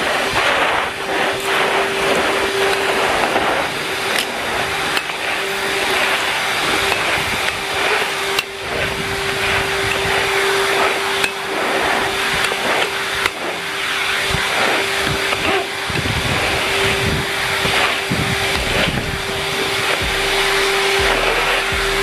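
Numatic Henry Wash vacuum cleaner running steadily, a constant motor whine over a rushing hiss of air. Its brush floor tool knocks and scrapes now and then on concrete paving.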